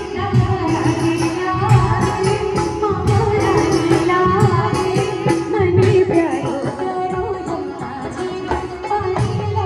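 Music: a voice singing a wavering melody over a steady drone, with drum beats.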